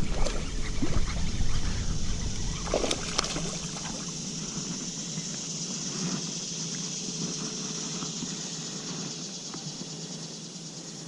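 Steady high-pitched insect buzz over a low rumble that starts abruptly at the outset, with a few scattered knocks.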